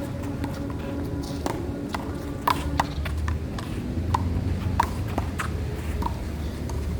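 Irregular sharp taps and clicks, about a dozen, some with a short ring, over a steady low rumble.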